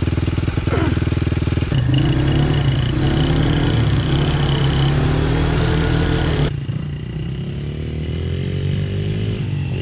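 Off-road motorbike engine running steadily, its sound changing abruptly twice as the shots change. In the last few seconds it is a little quieter, with the pitch rising slowly as it revs up.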